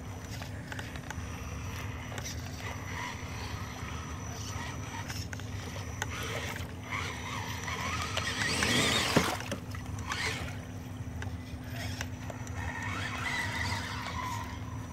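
RC rock crawler driving through a shallow, rocky stream: a steady motor and drivetrain hum with small clicks and knocks, and a louder splashing swell about eight to nine seconds in as it pushes through the water.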